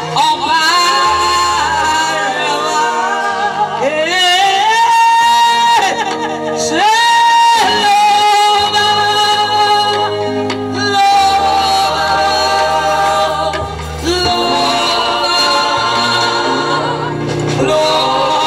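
Live gospel music: a woman lead singer holding long, gliding notes into a microphone, with backing singers and keyboard accompaniment with a steady bass line.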